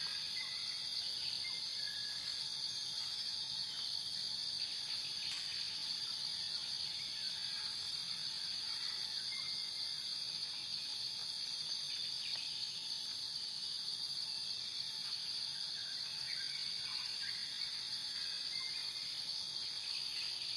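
Steady high-pitched insect chorus of crickets, with a few short faint bird calls over it.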